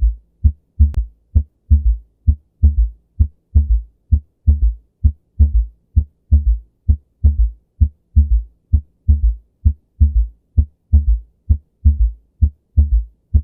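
Recorded heart sounds with a third heart sound (S3): a steady run of low thuds, about two a second, forming a three-beat rhythm in which the S3 follows just after the second sound. It is the physiological S3 of rapid early ventricular filling, heard at the apex.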